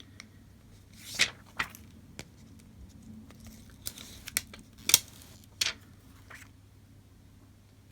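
Plastic film of an OCA adhesive sheet being handled: a series of short, sharp crinkling rustles, about seven in a few seconds, over a faint low hum.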